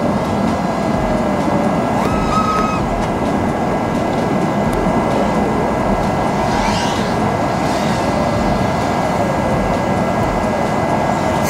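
A 5-inch FPV quadcopter's four T-Motor Velox V3 2306 2550KV motors and propellers buzzing in flight, the pitch drifting up and down with the throttle.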